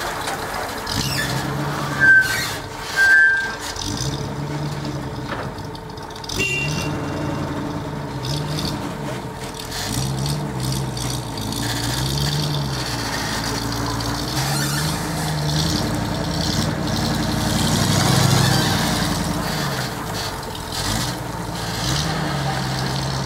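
Engine of road-repair machinery running, its pitch rising and falling over and over as it works. Two short, loud, high beeps sound about two seconds in.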